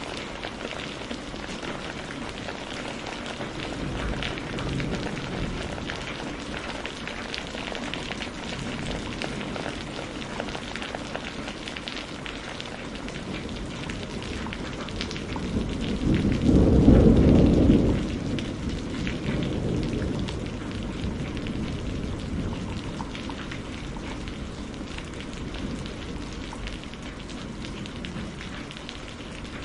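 Steady rain falling, with many fine drop ticks. Thunder rumbles low and loud a little past halfway, then fades over a few seconds.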